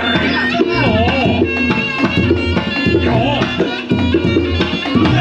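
Reog Ponorogo gamelan music: kendang hand drums keep a fast beat under steady ringing gong-chime tones and a wavering melody line.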